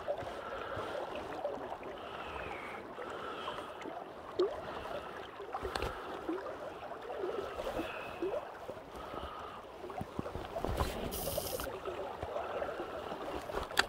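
River water gurgling and lapping against the hull of a boat on the current, with a few light knocks and a short hiss about eleven seconds in.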